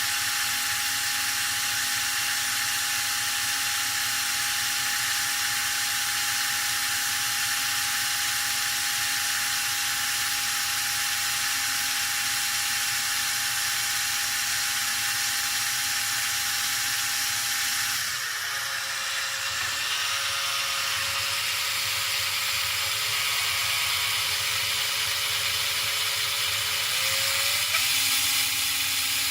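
A small electric motor spins a JAWA 634 speedometer/odometer on a test run with a steady whirr. A little past halfway its pitch drops to a lower speed, then glides back up to the first speed about ten seconds later.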